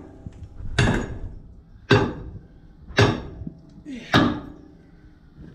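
Four heavy, evenly spaced strikes, about one a second, each followed by a short ring, like repeated hammer blows.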